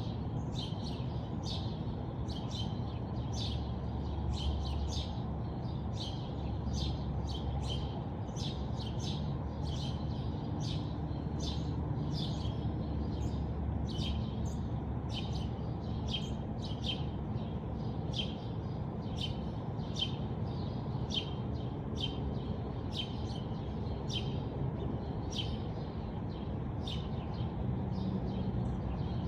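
Songbirds chirping: short high chirps repeating about one or two times a second, over a steady low rumble.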